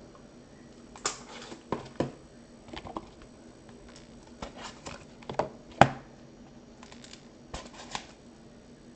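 Packaging of a sealed trading card box being torn and picked open by hand: irregular crinkles, clicks and taps, the sharpest a little before the 6-second mark.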